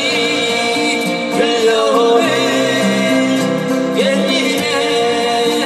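Two acoustic guitars played together with a man's voice singing long held notes, Korean folk-pop ballad style.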